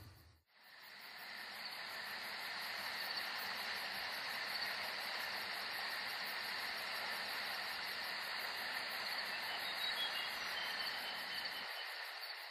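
Steady chirring of night insects, fading in over the first couple of seconds after a brief silence.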